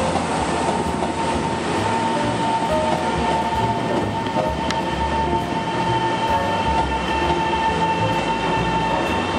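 Taiwan Railways EMU700 electric multiple unit pulling into the station: steady running noise of the train on the rails, with a high whine throughout. Higher whining tones join about halfway.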